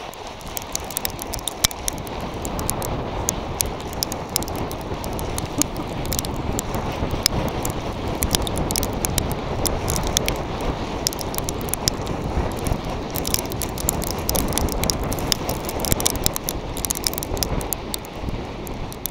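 A volcano board sliding fast down loose volcanic gravel: a steady rushing scrape with wind on the microphone and many sharp ticks of flying grit and pebbles.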